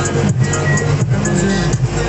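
Music playing, with held melody notes over a regular beat.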